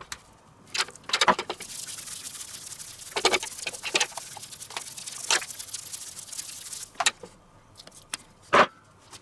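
Spice shaker shaken over a raw chicken: a quick rattle of the seasoning and its patter on the skin for several seconds, broken by a few knocks and taps against the steel tray. The loudest knock comes near the end.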